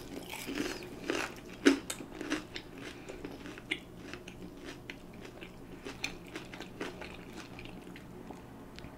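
Close-miked chewing of a beer-battered onion ring, crisp crunches and mouth sounds coming irregularly, the loudest crunch about two seconds in.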